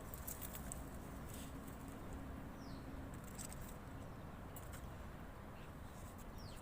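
Open-air ambience: a steady low rumble with scattered faint ticks, and a small bird giving two brief falling chirps, one a few seconds in and one near the end.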